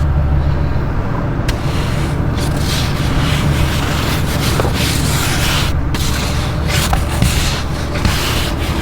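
A truck engine idling steadily while snow and ice are scraped and brushed off the vehicle in repeated rough strokes, starting about a second and a half in.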